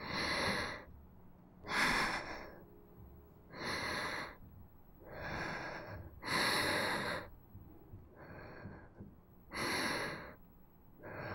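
A sick girl breathing heavily in bed: about seven slow, laboured breaths, each under a second long, with short silent pauses between them.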